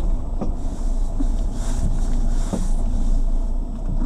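Lada Granta liftback driving and turning, heard from inside the car: a steady road and engine rumble with a couple of short knocks from the suspension, about half a second in and again about two and a half seconds in. The suspension knocks when the car turns, mostly to the left, and on bumps.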